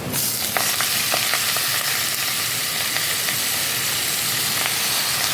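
Food frying in hot oil in a pan: a steady sizzle with scattered crackles and pops.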